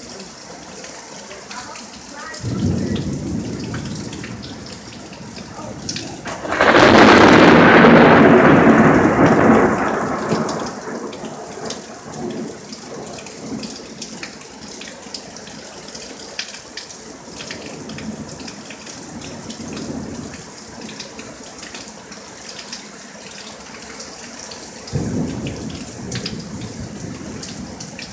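Thunderstorm with steady rain falling. A roll of thunder about two seconds in, then a loud, close thunderclap near seven seconds that rumbles away over about four seconds, and another rumble near the end.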